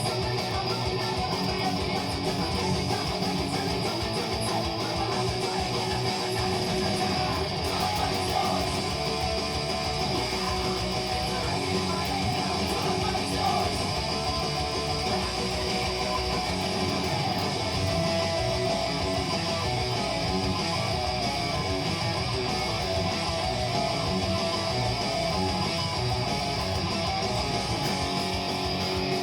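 Epiphone SG electric guitar played through a Line 6 Spider V amplifier and a 2x12 Celestion Vintage 30 cabinet, running through thrash-metal riffs without a break.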